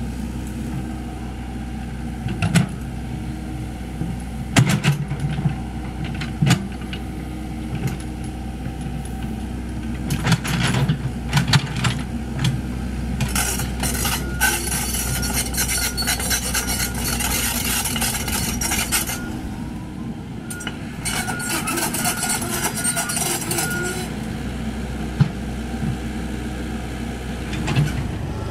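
Komatsu PC78US mini excavator's diesel engine running steadily as it digs, with scattered knocks and clanks from the bucket and arm working the soil. Twice in the middle, a harsher hissing rattle joins in for several seconds at a time.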